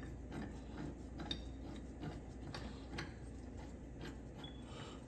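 Faint, irregular metallic clicks and ticks as a nut is spun off the engine mount of a 2015 Ford Fiesta by hand, over a steady low hum.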